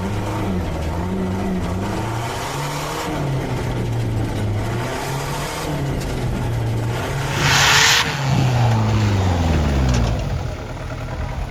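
Off-road 4x4 engine revving up and down again and again as it works over a rocky obstacle course. A brief loud rushing burst comes about seven and a half seconds in, and the revs fall away near the end.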